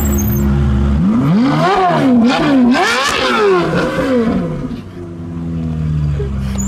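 Ferrari F430 Spider's V8 through an aftermarket Kline exhaust, idling, then revved in a quick series of blips, the pitch rising and falling several times, before it drops back to idle as the car rolls away.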